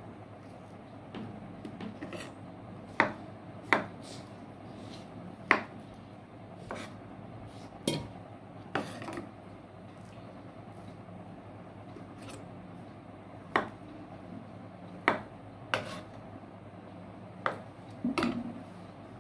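A kitchen knife cutting dragon fruit on a wooden chopping board: about fifteen sharp, irregular clicks and taps of the blade on the board, with soft rubbing and handling between them.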